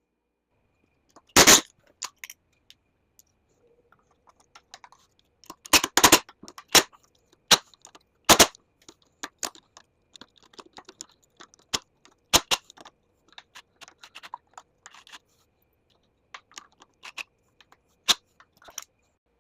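Irregular sharp knocks and clatter of metal parts and hand tools being handled during a golf cart teardown, with lighter clicking and rattling between. The loudest knocks come a little over a second in, in a cluster around six to eight seconds in, and again about twelve and eighteen seconds in.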